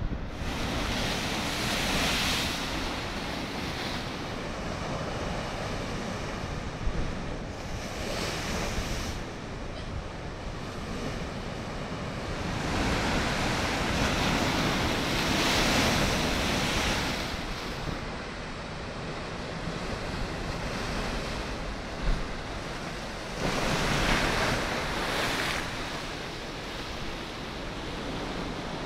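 Heavy winter surf breaking against a stone sea wall and seawater surging up over a flooded slipway, a continuous rush of water that swells louder with each incoming wave, loudest about halfway through and again near the end. Wind buffets the microphone.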